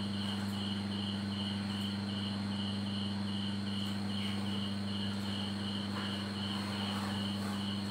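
A cricket chirping in a steady, even rhythm, about two to three chirps a second, over a constant low hum and hiss.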